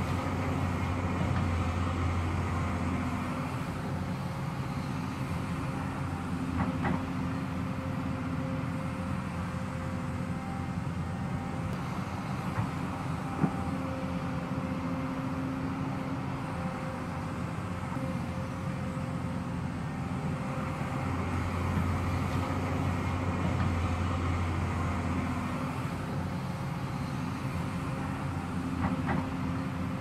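Hyundai crawler excavator's diesel engine running steadily under working load, its deep hum swelling near the start and again about two-thirds through, with a few sharp metallic clanks.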